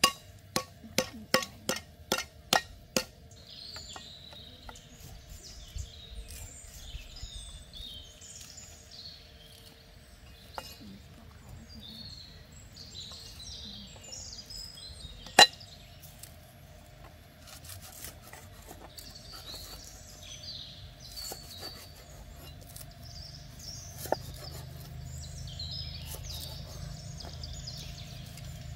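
A knife chopping on a thick wooden chopping board: a quick run of sharp knocks, about three a second, in the first few seconds, then only an odd single chop, the loudest about halfway through. Birds chirp throughout.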